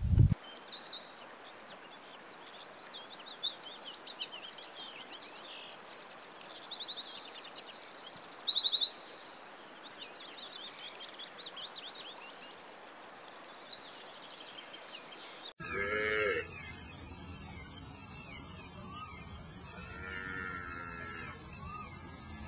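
Songbird singing rapid, high twittering trills and repeated notes for about fifteen seconds. The sound then cuts suddenly to a quieter stretch with a few lower animal calls over a low steady hum.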